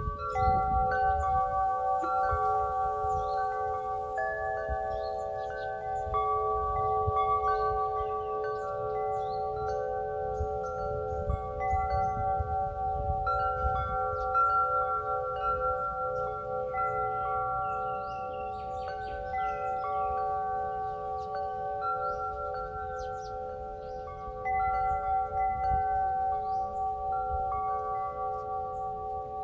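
Wind chime ringing: several tuned tubes are struck over and over, and their notes overlap and ring on. A low rumble runs underneath.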